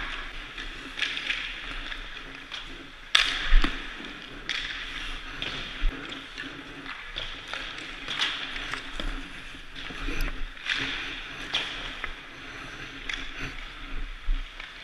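Ice rink ambience with many skaters: a steady scrape of skate blades on ice, with scattered sharp clacks of sticks and pucks throughout. The two loudest impacts come about three seconds in.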